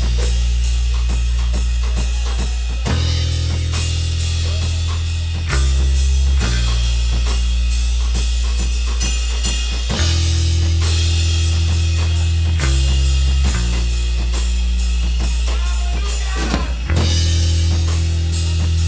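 Rock band playing live, an instrumental passage: a drum kit keeps a steady beat with bass drum and snare over a bass line of long held low notes.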